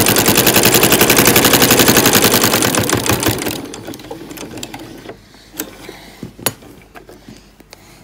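Janome domestic sewing machine stitching fast and steadily through thick layers of fabric, slowing and stopping about three and a half seconds in. A few light clicks and taps follow as the work is handled.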